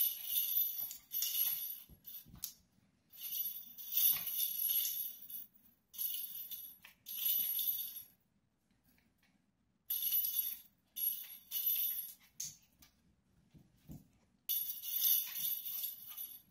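Small bell-filled plastic toy balls on a wand toy jingling in short, shaken bursts with pauses between, as the toy is swung and batted about on a wood floor.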